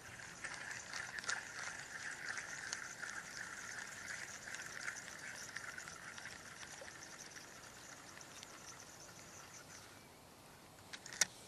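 Fishing reel being cranked to retrieve line, a steady whirring made of fine rapid gear ticks. It runs for about ten seconds and then dies away, followed by a couple of sharp clicks near the end.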